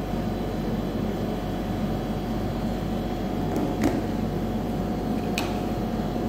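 Steady mechanical room hum with a constant low tone, like running machinery. A few light clicks about four and five and a half seconds in, from the phone and earbuds being handled on the table.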